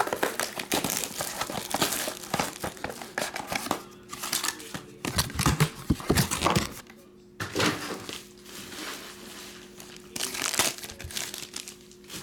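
A trading-card pack's foil wrapper being torn open and crinkled by hand, crackling on and off with short pauses. A faint steady hum sits underneath.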